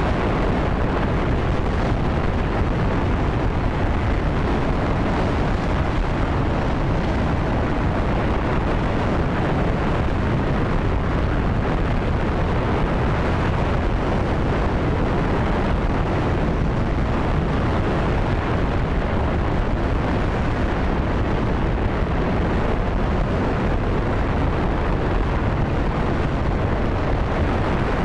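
J-2X liquid-hydrogen/liquid-oxygen rocket engine firing steadily on a test stand during a hot-fire test: a loud, even, rushing noise, heaviest in the deep low end, with no change in level.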